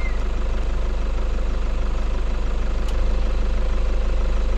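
Vehicle engine idling steadily with an even low pulse.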